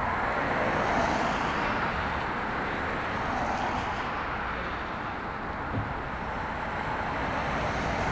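City street traffic: cars passing on a wet, slushy road, a steady hiss of tyres that swells slightly a couple of times.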